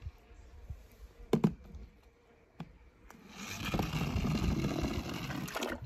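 A toy monster truck's plastic wheels rolling down a ramp of wooden popsicle sticks, a rough, continuous rattle that starts about three seconds in and stops abruptly near the end. Before it there is a sharp knock and a lighter click as the toy is handled and set down on the sticks.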